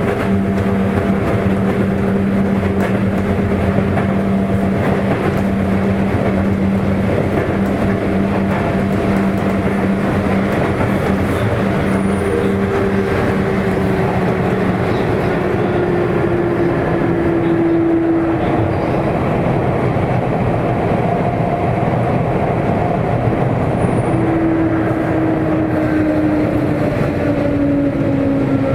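Interior running noise of a Sotetsu 8000 series electric train's motor car, fitted with a Hitachi IGBT-VVVF inverter: a steady rumble of wheels and rail with a steady hum at first. In the second half, motor whines slide slowly down in pitch as the train slows.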